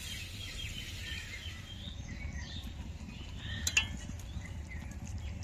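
Small birds chirping repeatedly in short calls over a steady low rumble, with one sharp click about three and a half seconds in.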